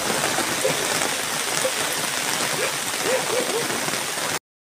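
Steady hiss of rain falling on standing water in a flooded rice paddy, which cuts off suddenly near the end.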